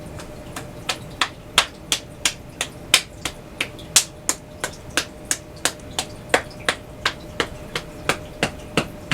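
Rhythmic qigong self-massage tapping on the body with a loose fist and a flat hand, sharp even taps about three a second.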